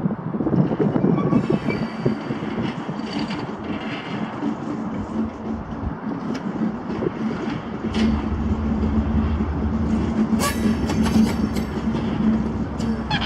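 GE Class 70 diesel locomotive approaching at low speed, its V16 engine running steadily and growing louder about eight seconds in. From about ten seconds in, its wheels click sharply over the rail joints.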